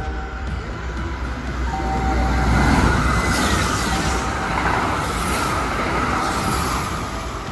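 Kintetsu Urban Liner limited express electric train passing through a station at speed without stopping. The rumble of the wheels and the rush of air build to their loudest about three seconds in as the front cars go by, then stay loud while the rest of the cars pass.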